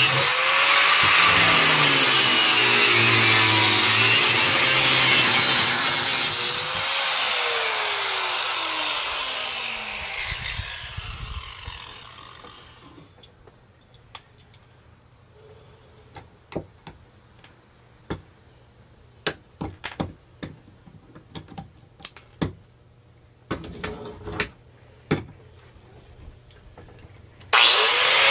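Power saw cutting wood, its motor pitch wavering under load. About six seconds in it is released and its whine falls away as the blade spins down, followed by scattered clicks and knocks of wood and tools being handled. The loud cutting starts again abruptly near the end.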